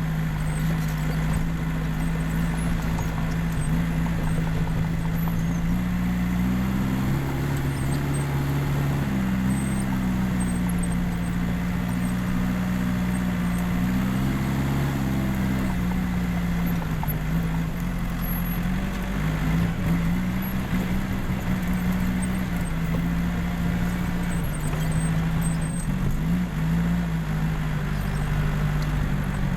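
Case 550G crawler bulldozer's diesel engine running steadily under working load, its pitch shifting up and down every few seconds as it pushes material.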